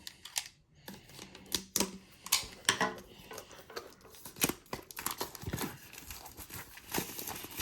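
A cardboard trading-card box being opened and handled, with irregular taps, scrapes and crinkles of packaging.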